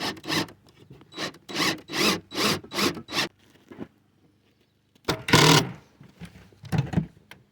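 A handsaw cutting wood in quick back-and-forth strokes, about two to three a second, stopping for a moment and then going on with one longer stroke and a couple of short ones.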